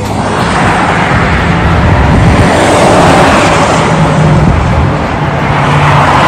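Highway traffic passing close by: a semi-truck hauling tanker trailers, with cars following, goes past with loud tyre and engine noise. The noise swells in, eases slightly, then rises again near the end as the next vehicles approach.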